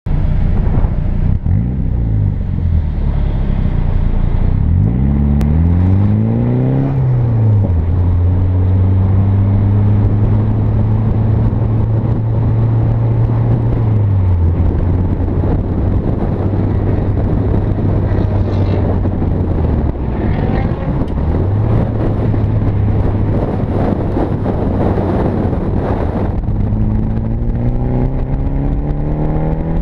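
Drift car's engine run hard through a lap, its pitch sweeping up and down in the first seven seconds, then held at high revs for long stretches with drops about 14 and 20 seconds in, and climbing again near the end. Wind and road noise rush steadily underneath on the outside-mounted camera.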